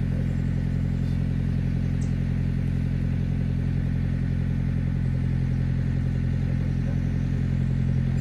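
A motor running steadily at constant speed, giving a low, even hum that does not change.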